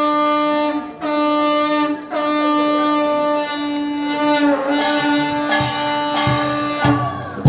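Taepyeongso (Korean double-reed shawm) playing long held notes in a nongak farmers' band piece, each note sliding in and breaking off about once a second, with a few low drum strokes entering near the end.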